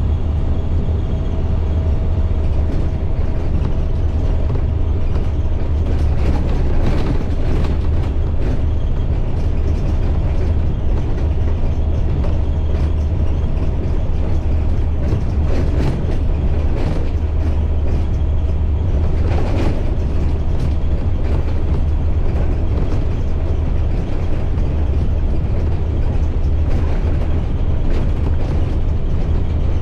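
2010 IC CE300 school bus under way: the steady low drone of its MaxxForce DT diesel engine mixed with road noise, with a few bumps and rattles along the way.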